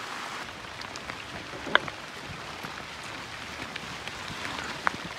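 Steady watery hiss with many light ticks scattered through it, and two sharper knocks, one a little under two seconds in and one near the end.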